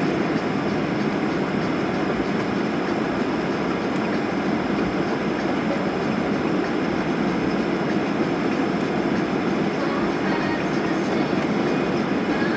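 Steady cabin rumble inside a Boeing 737 on the ground after landing: idling jet engines, air-conditioning airflow and the roll of the airframe, with no change in level.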